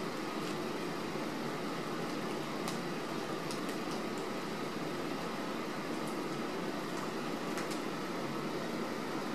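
Steady, even background noise like a fan or air conditioner running, with a few faint ticks scattered through it.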